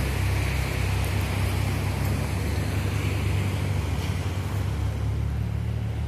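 Steady surf and wind noise: a constant low rumble with a light hiss above it, without breaks.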